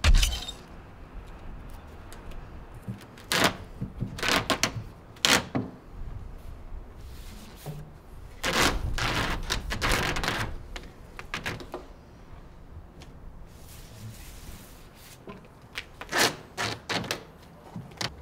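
ZIP System flashing tape being pulled off its roll in several ripping stretches, the longest lasting about two seconds, as it is laid along a window sill. A sharp knock comes right at the start.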